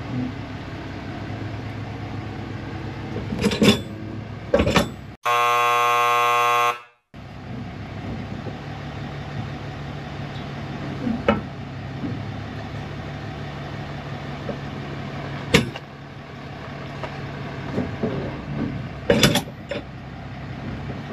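Truck engine idling under a few sharp clunks and knocks. About five seconds in, a loud, harsh buzzing tone sounds for about a second and a half.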